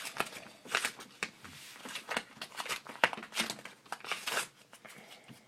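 A small package being cut and torn open with a small knife: irregular crinkling, rustling and tearing of the packaging, dying down near the end.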